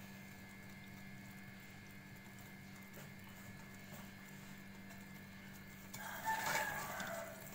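Faint steady hum, then for the last second and a half a metal slotted spoon stirring and scraping through a wet panjiri mix of ground chickpeas, ghee and jaggery in a metal pan.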